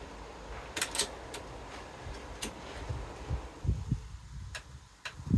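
Scattered light clicks and a few soft knocks from handling a bipod-mounted air rifle at its action, with a low rumble underneath.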